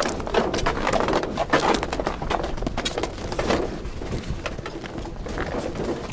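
Footsteps crunching and knocking on snow-dusted new river ice at a walking pace, with short irregular crunches about two or three a second.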